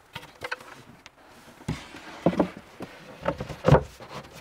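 A wooden worktop being lowered onto a kitchen cabinet and settled into place: several separate knocks of board against cabinet with a short scrape between them, the loudest knock about three-quarters of the way through.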